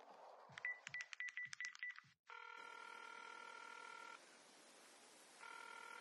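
Smartphone being dialed: about eight short keypad beeps in quick succession, then a phone ringing on the line, one ring of about two seconds, a pause, and the next ring starting near the end.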